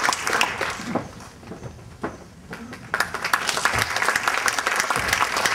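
Audience applauding: the clapping dies down after about a second, then picks up again louder about three seconds in.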